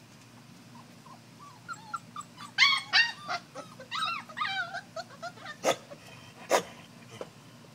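Young puppies whining and yelping in a run of high, rising-and-falling cries starting about two seconds in and lasting some three seconds, followed by two short sharp sounds near the end.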